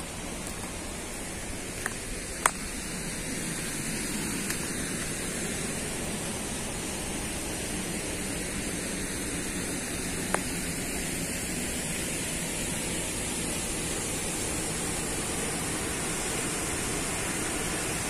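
Steady rushing of a waterfall and the fast river below it, growing slightly louder over the first few seconds. A few sharp clicks sound twice near the start and once about ten seconds in.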